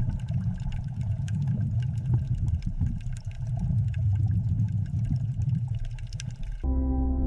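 Underwater rumble of churning whitewater, a deep steady churning with scattered crackling bubble pops. Near the end it cuts off suddenly and gives way to ambient music with held tones.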